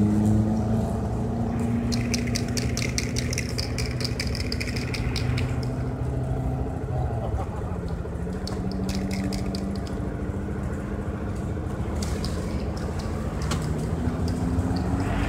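Road traffic: motorbike and car engines running close by, their pitch drifting slowly as they pass. Three runs of rapid, fine clicking sound over them.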